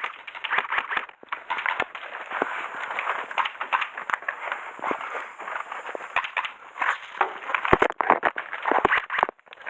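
Airsoft guns firing across the field: scattered sharp pops and clicks, with a tight cluster of strong shots about eight seconds in.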